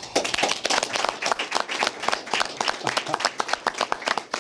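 A small group of people applauding: many overlapping hand claps that start suddenly and thin out near the end.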